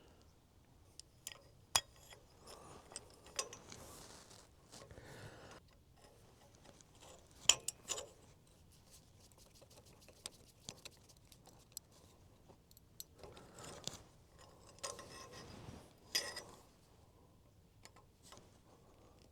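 Small metal parts and hand tools being handled while fitting a sawmill throttle cable: scattered sharp clicks and clinks with bits of rustling, the loudest clicks about two seconds in, about seven and a half seconds in and near the end.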